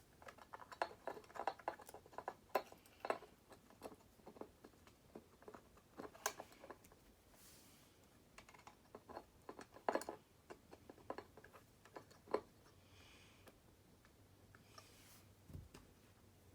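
Small, irregular clicks and taps of wires and a lamp socket being handled, as the wires are bent and looped around the socket's terminals.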